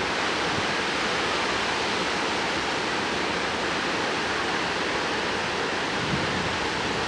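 Severe thunderstorm: a steady, even rushing hiss of wind and rain that holds at one level throughout.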